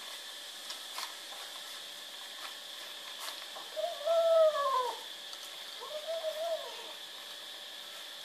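A kitten meowing twice: two drawn-out calls of about a second each that rise and fall in pitch, the first the louder.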